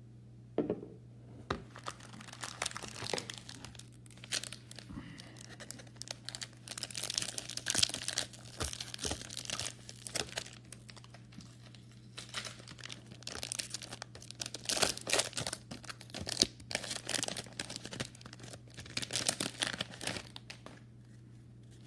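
A trading card pack wrapper being torn open and crinkled, with cards rustling as they are handled: irregular, uneven rustling and tearing in clusters, over a faint steady low hum.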